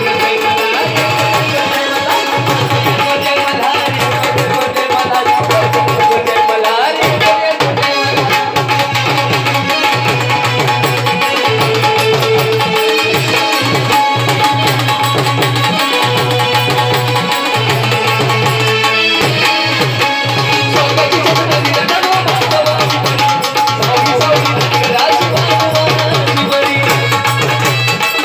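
Instrumental Indian folk music: a tabla-type hand drum keeping a steady beat under a melody line, with no singing.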